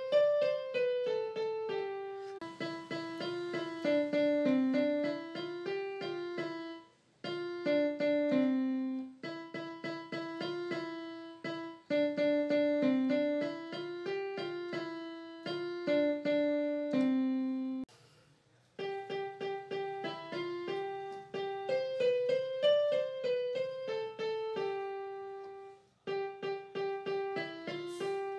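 Background music: a simple keyboard melody played note by note, breaking off briefly about 7, 18 and 26 seconds in.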